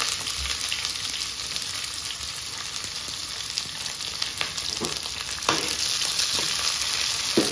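Sliced onions and cumin seeds sizzling steadily in hot oil in a kadhai. A metal ladle stirs and scrapes against the pan a few times in the second half, with the loudest scrape near the end.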